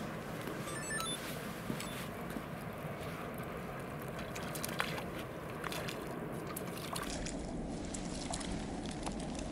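Steady pond-side water noise, trickling and sloshing, with a few faint clicks. About seven seconds in, a low rumble comes in underneath.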